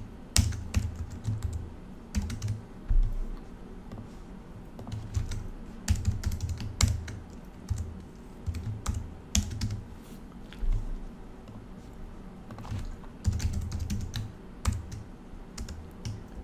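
Typing on a computer keyboard: sharp key clicks in short irregular bursts with pauses between them.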